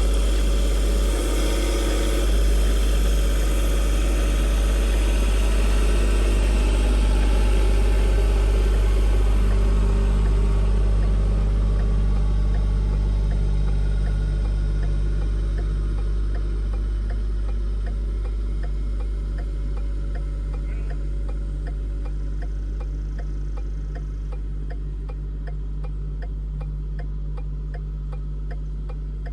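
A vehicle engine running steadily at idle, its pitch settling slightly lower about a third of the way in. A regular clicking starts in the later part and keeps on to the end.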